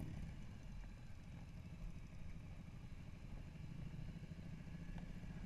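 Motorcycle riding at a steady cruising speed, recorded from on board: its engine running evenly under wind and road noise.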